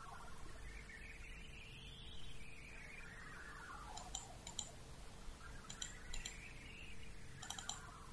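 Computer mouse clicks: sharp clicks in quick pairs and triplets from about four seconds in, over a faint steady hum and a faint tone that slowly rises and falls in pitch.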